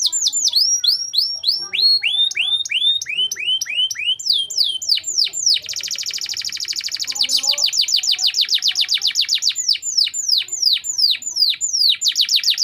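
Domestic canary singing continuously in rolling trills of repeated downward-sweeping notes. It switches between very fast rolls and slower series of longer falling whistles, several times over.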